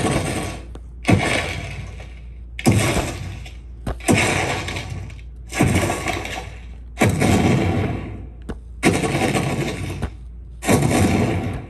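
A series of about eight heavy crashing impacts, roughly one every one and a half seconds. Each one hits sharply and dies away over about a second.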